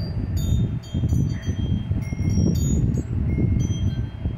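Wind chimes jingling in gusty storm wind, a few clear ringing notes at a time, over a heavy, fluctuating rumble of wind buffeting the microphone.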